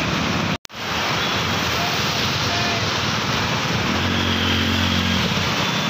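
Motorcycles and scooters riding through a flooded street, with a steady rush of water noise; one motorcycle engine's hum stands out about four seconds in. The sound cuts out for a moment under a second in.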